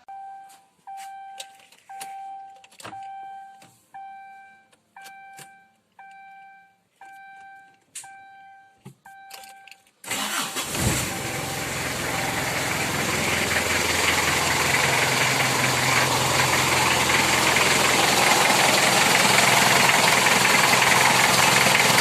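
A beep at a steady pitch repeats about once a second for about ten seconds. Then the Kia Sportage's swapped-in Mazda R2 four-cylinder diesel engine starts suddenly and keeps running, now that its fuel supply has been fixed.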